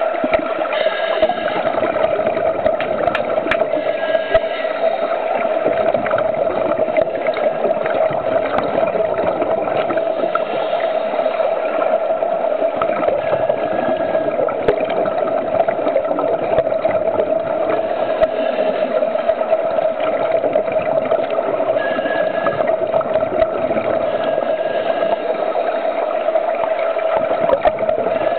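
Underwater sound in a swimming pool around scuba divers: a steady, unchanging hum under a crackling, bubbling hiss from exhaled regulator bubbles, with scattered small clicks.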